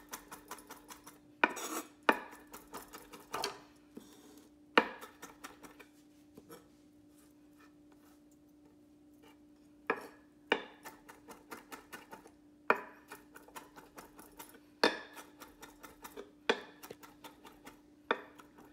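Chef's knife chopping fresh cilantro on a wooden cutting board: runs of quick knocks of the blade on the wood, with a few seconds' pause near the middle.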